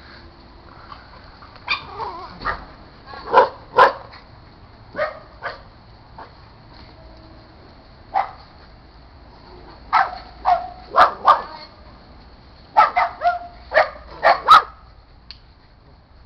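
Dogs barking: short, sharp barks in irregular bunches with quiet gaps between, the loudest a few seconds in and near the end.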